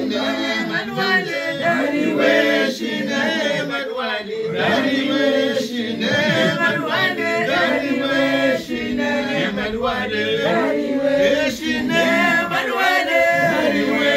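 A group of voices chanting together unaccompanied: Mouride devotional chant, with overlapping voices and a steady, rhythmic phrasing.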